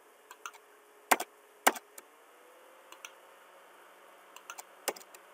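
Scattered sharp clicks of a computer mouse and keyboard while picking points for a line in AutoCAD, with two louder clicks about a second in and another near the end.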